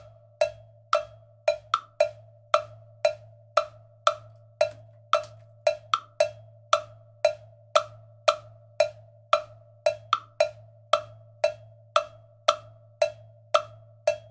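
Cha-cha-cha bell pattern struck with a drumstick on a mounted plastic block, with a clave rhythm added by the other hand: sharp, evenly spaced clicks about two a second, with a quick pair of strokes every couple of seconds.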